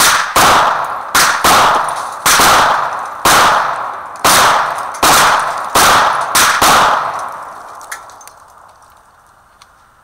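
Two guns fired together in a rapid, uneven string: about a dozen loud shots over some seven seconds, each with an echoing tail, some nearly overlapping, then the firing stops.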